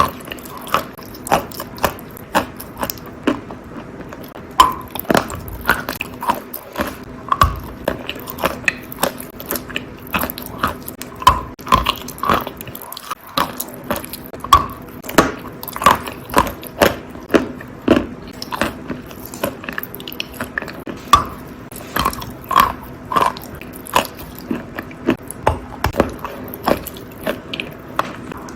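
Wet crunching of natural chalk tiles coated in pink clay paste, bitten and chewed with sharp crunches about one to two a second.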